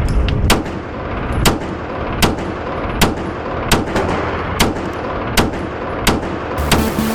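A 9mm pistol, the Daniel Defense H9, firing a steady string of about ten shots at roughly one every three-quarters of a second, over a constant background din. Music comes in near the end.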